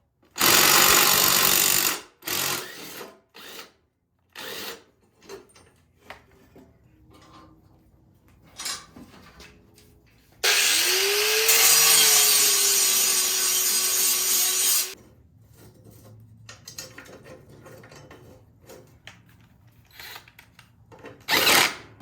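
Power tools working on lawn mower blades. In the first few seconds a power tool runs in one longer burst and several short ones, loosening the blades. About ten seconds in, another power tool spins up with a rising whine and runs steadily for about four seconds, putting a new edge on the dull blades. Light clicks and handling noises come in between.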